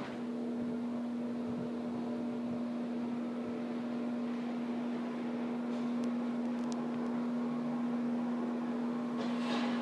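Motorized roll-down porch screen's motor running with a steady low hum as the shade lowers, starting abruptly. A brief hiss comes near the end.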